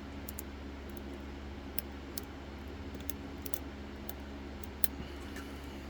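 Faint, scattered metallic ticks of a slim hook pick working the pin stacks of a BKS 8800 lock cylinder under tension, over a steady low hum.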